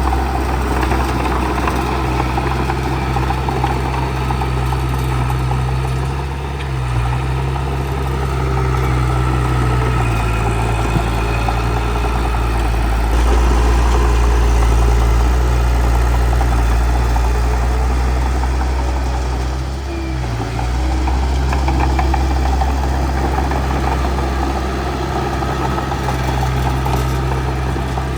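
Bulldozer's diesel engine running steadily with a deep, low drone. Its note and level dip briefly twice, about a quarter of the way in and about two-thirds through, as if it were taking load.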